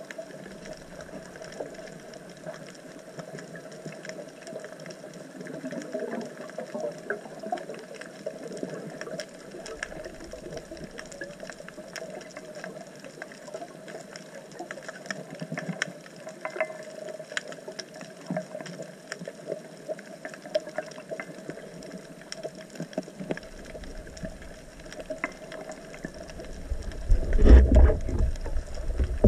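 Underwater ambience on a coral reef: a steady hum with many small crackling clicks, then a loud low rumble near the end.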